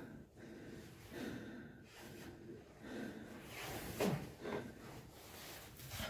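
A man breathing heavily close to the microphone, a string of short, hard breaths: winded from the climb.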